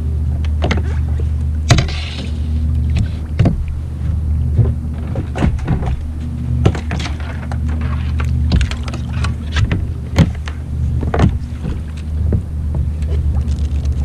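Irregular knocks and clunks of gear being handled on a plastic fishing kayak, a Stealth Fusion 480, as the paddle is shifted and the hatch lid lifted while rigging up. Under them runs a steady low hum.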